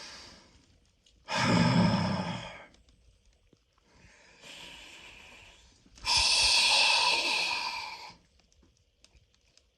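A man taking slow, deep breaths while sitting in an ice bath, each breath a loud rush of air. There is a heavy, sigh-like breath about a second in, a quieter one around four to five seconds, and a long, loud one from about six to eight seconds.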